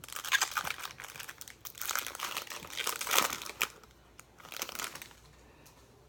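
Foil wrapper of a Topps Chrome trading-card pack crinkling and rustling in bursts as the pack is handled and opened, with a shorter burst of crinkling near five seconds before it goes still.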